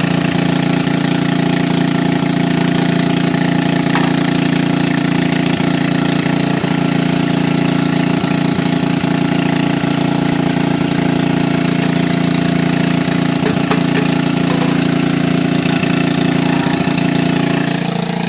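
Generator engine running at a steady speed, with its pitch starting to drop near the end.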